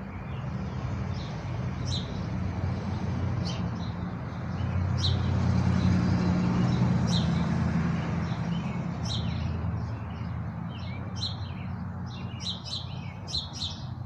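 Small birds chirping on and off, more often near the end, over a steady low rumble that swells and fades again about five to eight seconds in.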